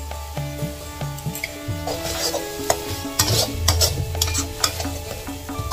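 Metal spatula stirring and scraping chili paste around an aluminium wok as it fries, with short scrapes and clinks against the pan from about two seconds in and sizzling underneath. Background music plays throughout.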